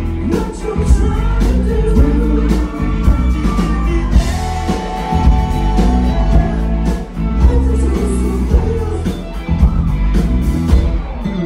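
Live band playing loud, with electric guitar, bass and drum kit, and a voice singing over it.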